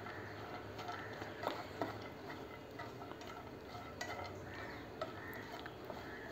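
Slotted spatula stirring chopped cashews and pistachios toasting in a little ghee in a non-stick pan: faint scraping with a few light clicks and taps.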